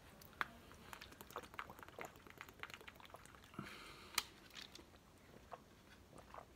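Quiet sips and swallows of water from a small plastic water bottle, with faint clicks from handling the plastic and one sharper click about four seconds in.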